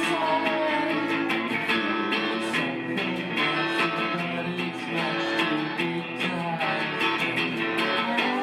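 Guitar strummed in a live rock song, a steady rhythm of sharp strokes with no singing.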